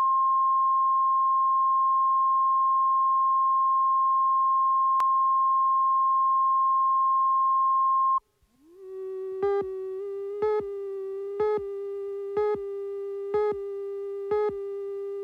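Broadcast line-up reference tone over colour bars: a steady 1 kHz sine tone that cuts off about eight seconds in. Then a lower, buzzy steady tone plays under a countdown slate, with a short loud pip once a second, six times.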